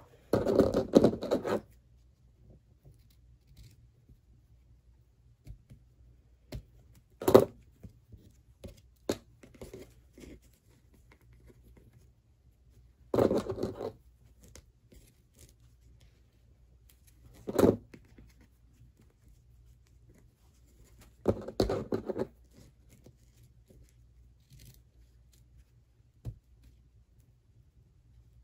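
Hands handling a fabric ribbon bow: three short bursts of rustling and scraping, each about a second long, with two sharp single clicks between them.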